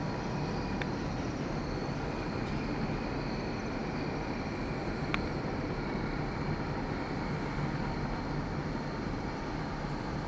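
Steady low rumble and hiss of outdoor background noise, with a faint high steady tone over it and a single sharp click about five seconds in.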